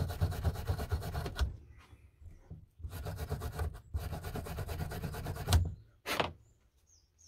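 Hand rubbing briskly at the metal of a pair of old snips, a rapid back-and-forth scrubbing in two spells of about two seconds each, then one short scrape.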